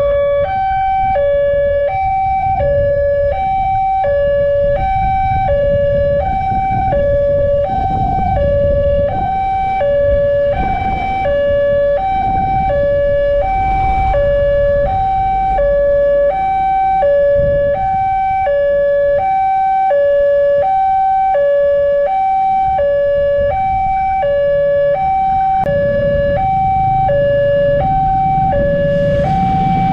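Electronic railway level-crossing alarm sounding, a steady two-tone warning alternating between a higher and a lower tone at about one high-low cycle per second, signalling an approaching train. Road traffic rumbles underneath.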